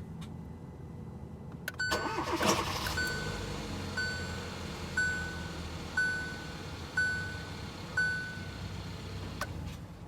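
2018 Hyundai Tucson's 1.6-litre turbo four-cylinder starting with a brief loud burst of noise about two seconds in, then running with a low steady hum. A dashboard warning chime sounds about once a second, six times. The owner reports crazy noises when starting, which have happened three times.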